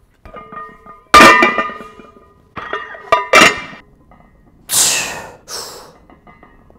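Iron weight plates clanging against each other and the steel barbell as they are loaded, four ringing metal clangs with the loudest about a second in. Two short, sharp breaths follow as the lifter grips the bar.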